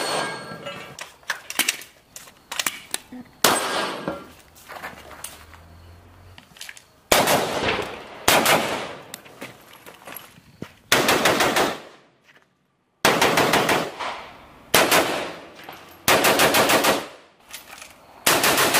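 Gunfire from a Norinco Type 56 AK-pattern rifle in 7.62×39 mm: scattered single shots, each trailing off in echo, then four strings of rapid shots, each about a second long, in the second half.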